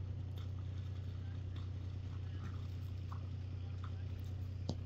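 Friesian horses' hooves splashing and squelching through shallow water and mud: a few faint, irregular steps, with a sharper knock near the end, over a steady low rumble.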